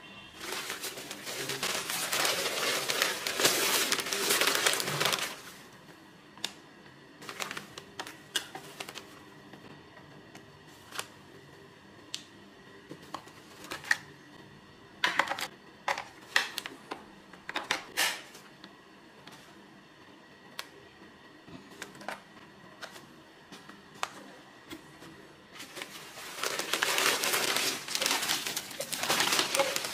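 Shiny synthetic fabric of a prayer mat rustling as it is unfolded and handled. Then come scattered clicks and taps while a plastic electronic module is pushed into a pocket of the mat. The rustling starts again near the end.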